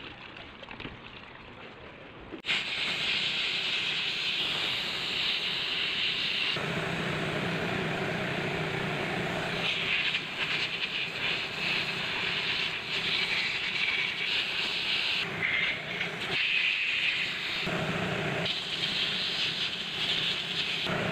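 Steady hissing jet from a hose played over disassembled car A/C compressor parts (a shaft, then the valve plate) to clean them. It starts about two and a half seconds in and rises and falls as the parts are turned in the jet.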